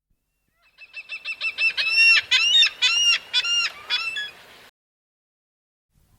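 Domestic fowl calling: a rapid run of short notes building into a string of about a dozen longer, loud repeated calls, cut off abruptly near the end.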